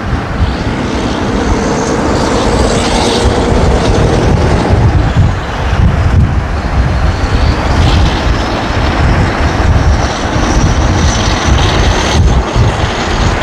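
Scania V8 truck engine running through an open, straight 'howler' exhaust pipe: a loud, deep rumble heard from a car following close behind.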